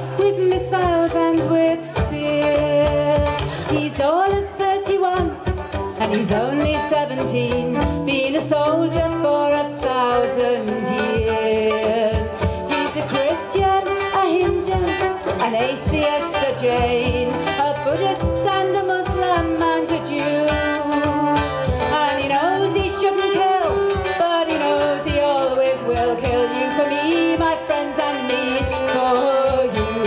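Live acoustic folk music: a fiddle and a hurdy-gurdy play the melody over a steady drone, with a strummed and plucked guitar underneath.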